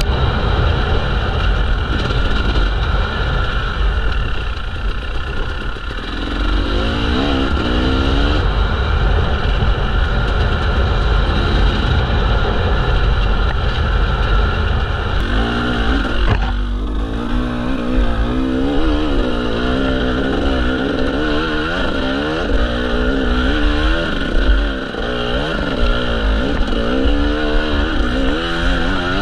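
Dirt bike engine heard from on board, its pitch rising and falling repeatedly with the throttle as the bike rides over a rough trail, over a steady low rumble.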